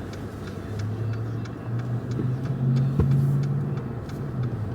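Car engine running with a low hum that rises a little in pitch as the car picks up speed, and a single sharp click about three seconds in.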